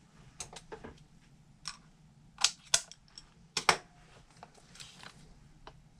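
Small scale-model kit parts being handled and fitted together: a scatter of light clicks and taps, with three sharper clicks around the middle.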